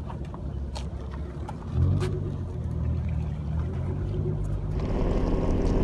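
A motor engine hums steadily at a low pitch, starting about two seconds in, with a few faint clicks before it.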